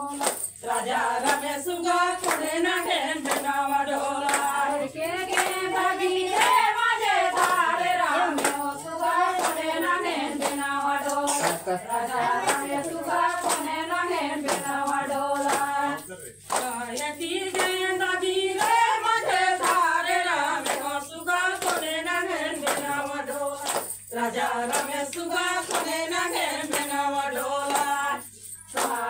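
Group of women singing a Chhattisgarhi Suwa (Suga) folk song together in unison, keeping time with rhythmic hand-clapping, with brief pauses between lines.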